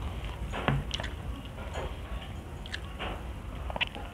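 Close-miked eating sounds: chewing and wet mouth smacks with scattered sharp clicks, as fried tilapia and rice are picked apart with the fingers and eaten, over a low steady hum.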